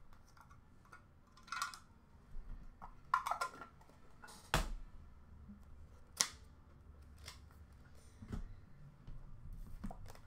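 Cardboard card boxes and packs being handled and opened by hand: a string of short rustles, scrapes and clicks, the two sharpest clicks near the middle.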